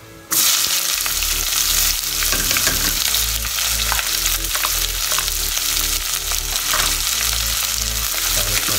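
Sliced onions hit hot ghee and oil and sizzle loudly, starting suddenly about a third of a second in, as the onions begin frying with whole spices. A spatula stirs them against the pan.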